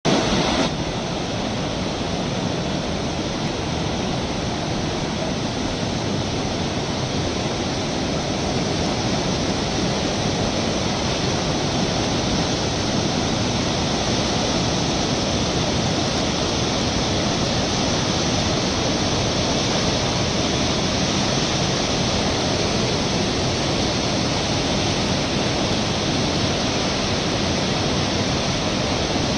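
Fast-flowing floodwater rushing steadily, with no breaks.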